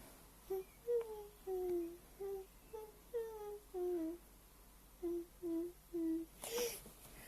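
A person humming a short tune in a high voice: about a dozen separate notes in two phrases, with a brief pause between them.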